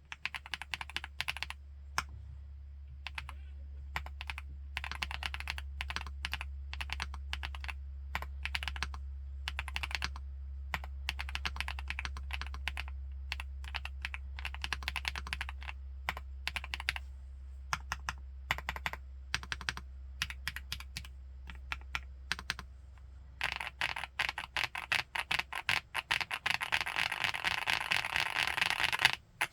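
Typing on an FL-Esports Geo75 mechanical keyboard: a steady run of key clicks that turns into a fast, dense flurry of keystrokes for the last several seconds, then stops abruptly. A faint low hum sits under the first part.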